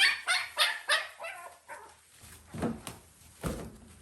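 Newborn puppy crying for its milk: a fast run of short, high yelps, about three a second, trailing off after about two seconds. Two low thumps follow near the end.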